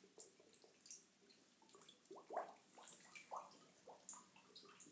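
Faint underwater bubbling: scattered small drips and bubble pops, a few a second.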